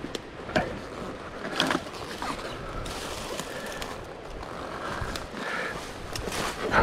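Two-stroke dirt bike moving slowly over rough trail, its engine running low under a rumble and clatter, with a few sharp knocks, the loudest near the end.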